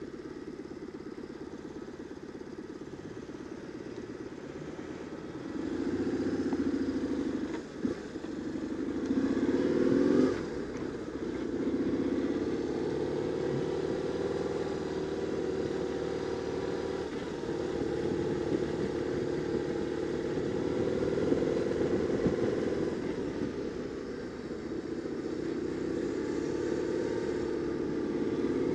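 BMW R850R's boxer twin engine under way in traffic: it pulls harder from about five seconds in, dips briefly, rises again, then drops off sharply about ten seconds in and runs steadily after, picking up once more near the end.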